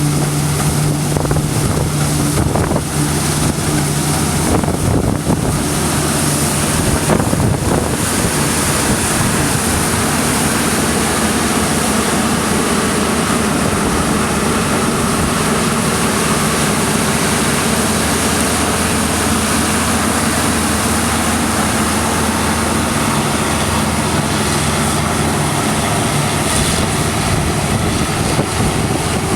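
New Holland CX8070 combine harvester running steadily under load while harvesting barley, a constant engine hum under a broad rushing noise. The hum is stronger at the start and near the end, and wind buffets the microphone.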